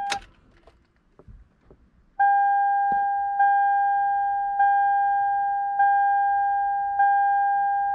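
2009 Toyota Sienna's dashboard warning chime ringing: a clear bell-like tone struck about every second and a quarter, five times, each ringing on until the next.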